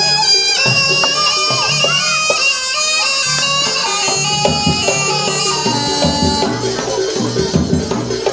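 Jaranan gamelan music: a reed shawm (slompret) plays a wavering, bending melody over a repeating pattern of drums and low gong strokes. About halfway through, the shawm thins out and the drumming comes forward.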